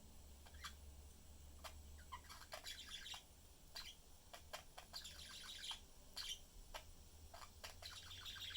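Pet budgerigars chirping faintly: short, sharp chirps that come in quick runs of several at a time, with gaps between the runs.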